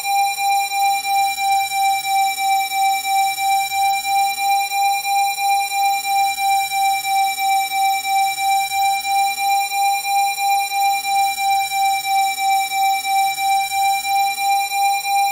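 Electronically generated Rife frequency tone at about 787 Hz, held steady and pulsing in loudness about three times a second. Faint sweeps rise and fall underneath it every couple of seconds.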